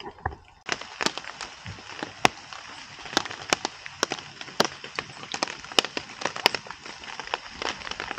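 Rain falling steadily, with many sharp, irregular drips tapping over a constant hiss.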